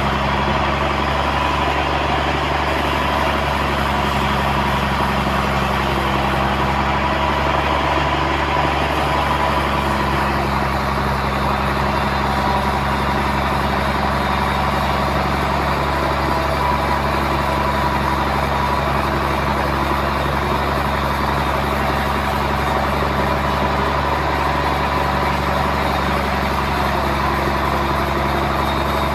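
Sawmill machinery running steadily, a constant engine drone with a steady whine above it.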